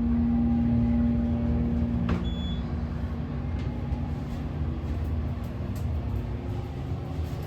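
Steady low mechanical hum of a moving mall glass elevator, with a single sharp click about two seconds in. After the click the hum's pitched tone fades into a duller rumble.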